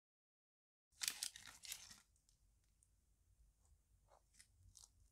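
Crusty slice of gluten-free bread crackling and tearing as a hand lifts it from the loaf: a burst of crisp crackles about a second in, lasting about a second, then faint scattered crumbly crackles.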